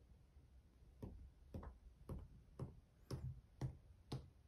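A tiny plastic toy figure tapping on a hard surface, faint sharp taps about two a second, starting about a second in.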